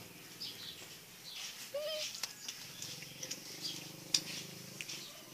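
Faint chirping of small birds, with a short squeal about two seconds in and a few light clicks.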